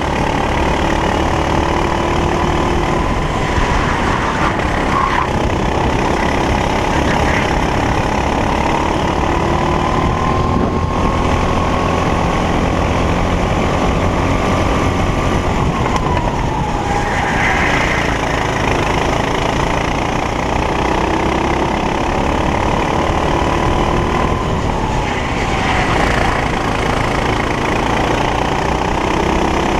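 Racing kart engine at race pace. Its note climbs slowly along a straight, drops sharply under braking about halfway through and again near the end, then picks up again, over a constant low rumble.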